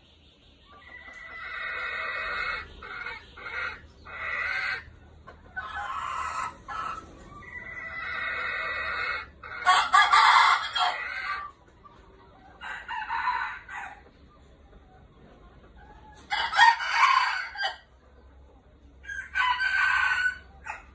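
Several red junglefowl roosters crowing in turn, about eight separate crows with short pauses between them, the loudest about halfway through and again near the end.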